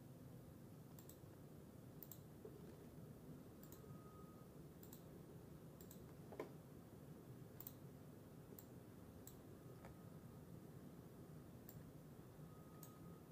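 Near silence over a low steady hum, with about ten faint, scattered computer mouse clicks.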